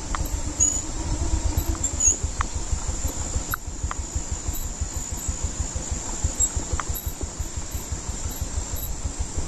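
Motorcycle engine running at low speed, a pulsing low rumble as the bike crawls over a rough, muddy dirt track. A steady high whine of insects runs underneath, with a few faint short chirps.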